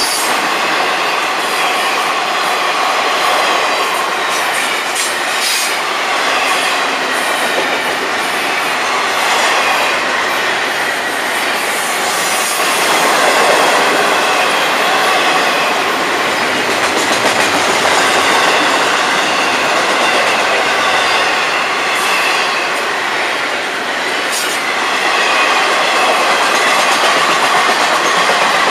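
Long freight train's cars rolling past: the steady rumble and clatter of steel wheels on rail, with a thin high wheel squeal and a few sharp clanks. The cars are double-stack container well cars, giving way to open hopper cars near the end.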